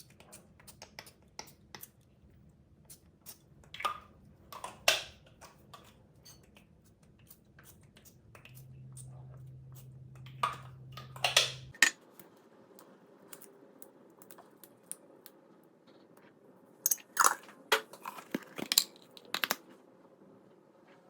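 Crisp puff pastry of a raspberry mille-feuille crunching and crackling in irregular bursts, with louder clusters about four, eleven and seventeen seconds in.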